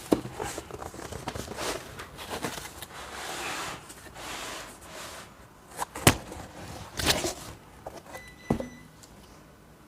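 Packaging being handled during an unboxing: cardboard and wrapping rustling and scraping, with a few sharp knocks about six and seven seconds in.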